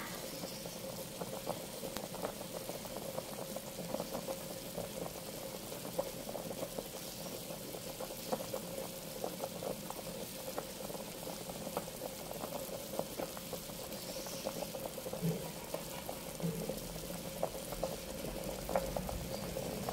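A pot of water at a rolling boil with a whole chicken cooking in it: steady bubbling with many small irregular pops.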